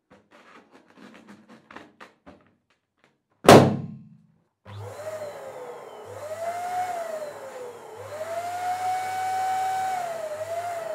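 Faint taps on a latex balloon, then about three and a half seconds in a single loud pop as the inflated red balloon bursts. About a second later an electric balloon pump starts inflating another latex balloon, its motor whine rising and falling as it is switched on and off, then held steady near the end before dropping away.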